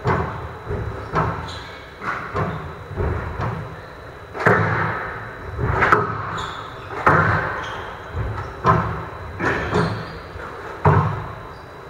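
Squash rally: the ball cracks off rackets and the court walls in quick succession, a sharp hit every half-second to second, echoing in a large hall.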